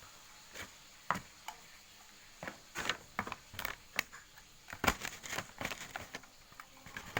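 Irregular clicks and crinkles of small plastic toy pieces and packaging being handled, a few at first and coming thicker from about two and a half seconds in.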